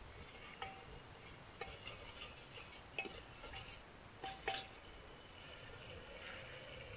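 A steel ladle clinking against the metal of a Hawkins pressure cooker as the cook works it in the pot: about five short ringing clinks, the last two close together and loudest about four and a half seconds in.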